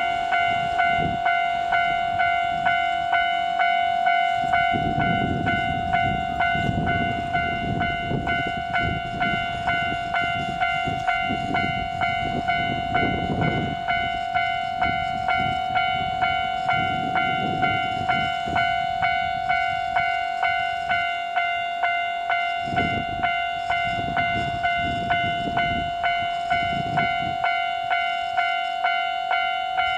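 Railway level-crossing warning bell ringing on and on, one fixed-pitch electronic ding struck evenly about one and a half times a second. From about four seconds in, the low rumble of the approaching Free Gauge Train (gauge-changing test train) runs under it.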